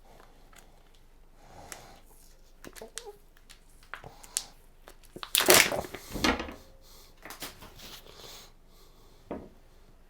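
Kitchen handling noises: scattered light knocks and clicks of utensils and dishes, with a louder noisy burst about five and a half seconds in and a single knock near the end.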